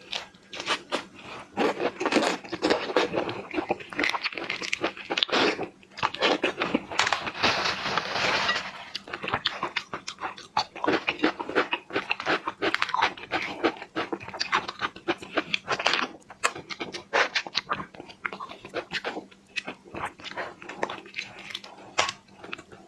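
Close-miked eating of Argentine red shrimp: the shells crackling and wet chewing and smacking, a dense run of crunchy clicks with a few brief lulls.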